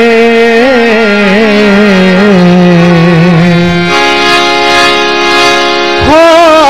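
Hindi devotional bhajan music: a long sung note with wavering ornaments that slides gradually downward, then from about four seconds in a sustained instrumental chord, with a new melodic line entering near the end.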